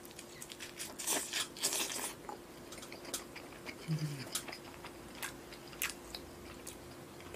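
Close-miked biting into a roasted Orleans-style chicken leg, with a cluster of crackly bites about a second in, then wet chewing and lip smacks. A short hummed "mm" comes about four seconds in, over a faint steady hum.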